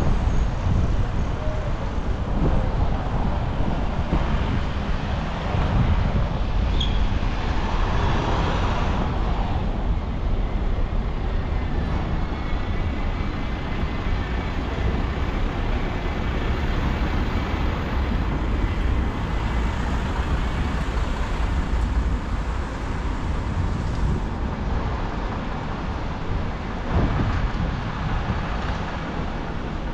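City street traffic noise: a steady, loud low rumble of vehicles, with one louder pass about eight seconds in.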